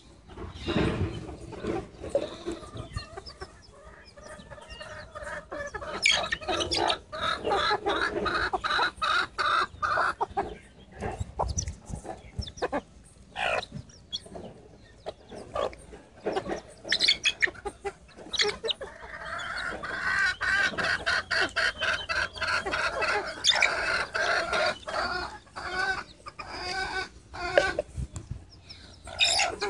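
A flock of feral chickens clucking in fast runs of calls, with two longer, louder stretches, one about a quarter of the way in and one past the middle, over many sharp taps of beaks pecking feed off concrete.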